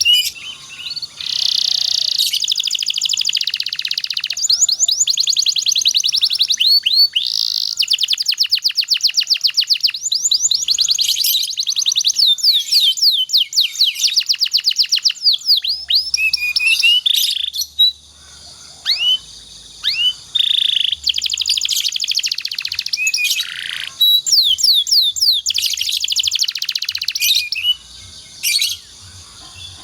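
Domestic canary singing long, fast rolling trills and strings of rapid high-pitched chirps, with a couple of short breaks.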